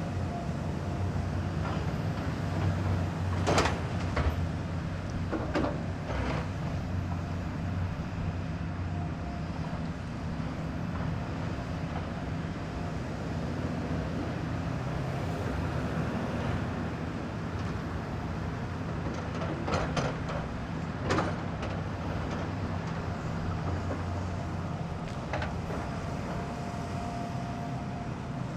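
Heavy construction machine's diesel engine running steadily, with a few sharp metallic clanks and knocks. The loudest knocks come about three and a half seconds in and again around twenty-one seconds.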